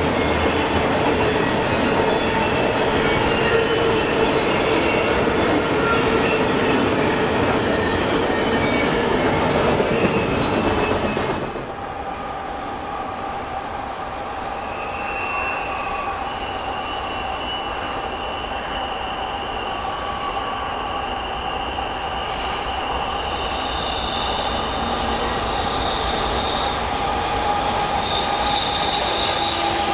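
Double-stack container train rolling across a steel girder bridge, a loud, steady rumble and clatter of the wagons. About eleven seconds in it gives way to a quieter approaching intermodal freight train led by diesel locomotives, its wheels squealing in several high, steady tones on the curve, growing louder towards the end.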